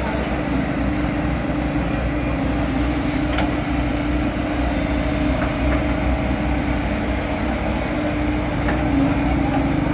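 Hydraulic excavators' diesel engines running steadily at a construction site, a continuous rumble with a steady hum, with a few faint knocks.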